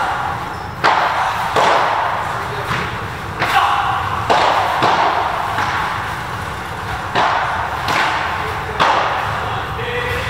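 Padel rally: a padel ball struck back and forth with rackets and bouncing on the court, about eight sharp pops at uneven intervals, each with a short echo, over a steady low rumble.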